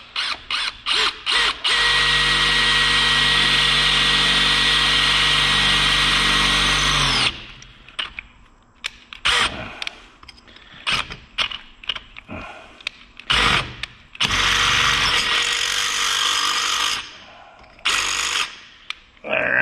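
Cordless drill boring an 8.5 mm hole through a metal bracket clamped in a vise. A few short trigger pulses come first, then a steady run of about five seconds, then a stretch of short stop-start bursts and another steady run of about three seconds.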